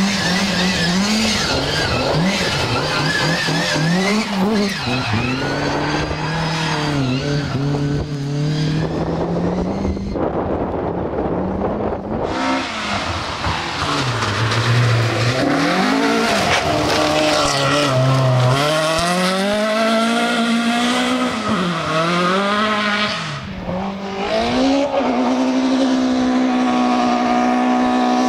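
Rally cars driven flat out on a stage, one after another, engines revving hard. The pitch repeatedly climbs and drops through gear changes and lifts, with tyre squeal and skidding. Near the end one engine holds a high, steady pitch for a few seconds.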